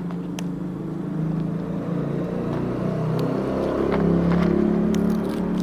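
Smart-key motorcycle engine idling steadily, growing somewhat louder about halfway through.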